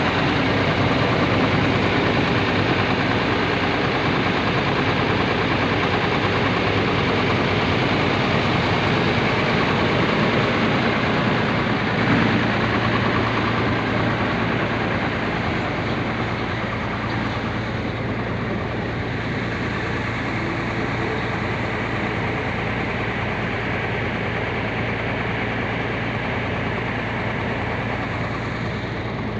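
Intercity bus's diesel engine idling steadily. A steady low hum joins it about twelve seconds in.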